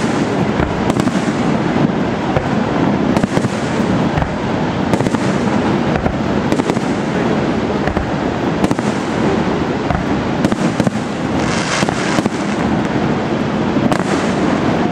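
Fireworks display: a dense, continuous barrage of bangs and crackling, with a brighter crackling burst near the end.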